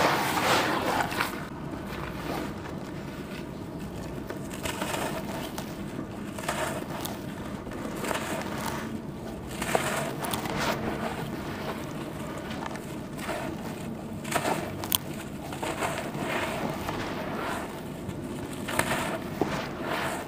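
Charcoal slabs being crumbled and squeezed by gloved hands in a plastic tub, giving gritty crunching and crumbling in irregular bursts, with one sharp crack about fifteen seconds in.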